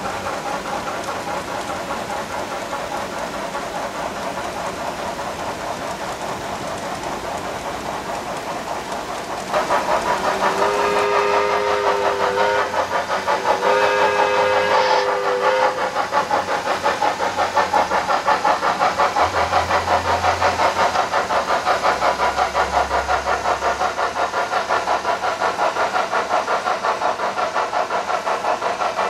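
HO-scale model tank-car train running along the track, its wheels clicking in a fast, even rhythm. A two-note steam whistle sounds twice, each blast about two seconds long, near the middle.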